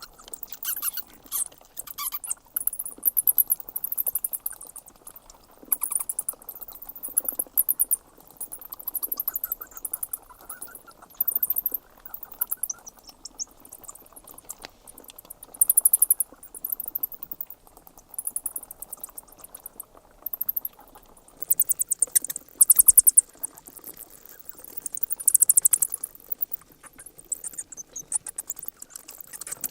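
Bats squeaking and chittering in rapid, very high-pitched bursts of fast clicking calls, repeating irregularly every second or so.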